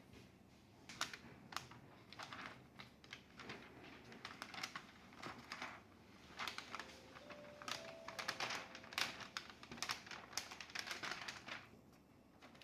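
Typing on a laptop keyboard: irregular runs of quick key clicks with short pauses between them.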